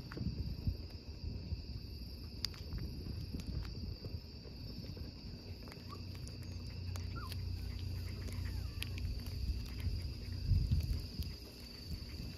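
Crickets trilling steadily in a high, even tone, over an uneven low rumble of wind on the microphone that swells near the end.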